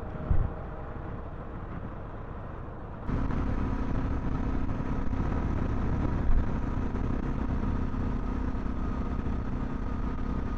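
Dual-sport motorcycle riding along at road speed: steady engine running under wind noise. About three seconds in, the sound cuts abruptly to a louder, steady engine hum.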